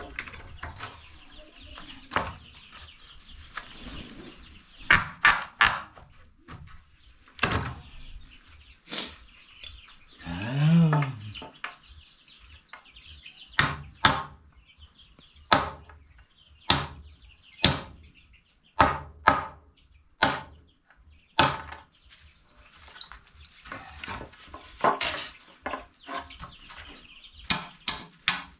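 Chickens clucking, with a string of sharp knocks at irregular intervals, about one a second.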